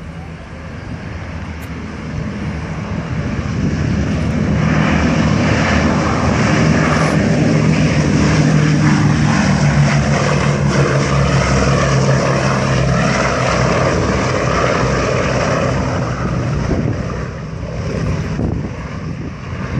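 Boeing B-17 Flying Fortress's four Wright R-1820 Cyclone radial engines running at takeoff power as the bomber climbs out. The drone of the engines and propellers grows louder as it passes, then eases off as it flies away.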